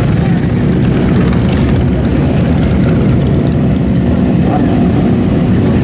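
Several motorcycle engines running together at low speed, a steady, loud, low rumble as a group of cruiser and sport bikes rolls past and idles.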